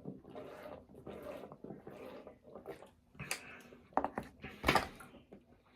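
Close-miked chewing and mouth sounds of someone eating a fast-food burger meal, in a steady rhythm about twice a second, with a few sharper, louder crunches or clicks past the middle.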